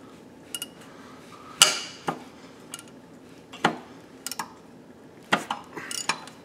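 A wrench and socket clinking and knocking against the rod-cap bolts and crankshaft of a Case 336BD diesel engine under teardown: about seven short, sharp metal clinks spaced unevenly, the loudest about one and a half seconds in.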